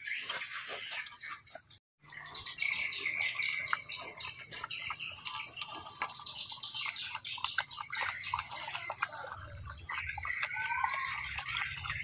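A dog lapping and slurping watery rice and noodle soup from a metal bowl: a run of quick wet clicks and licks. Birds chirp in the background, and the sound drops out for a moment about two seconds in.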